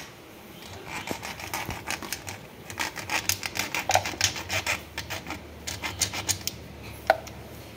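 A flat steel hand file rasping over a small part in quick back-and-forth strokes. There is a sharp click about seven seconds in.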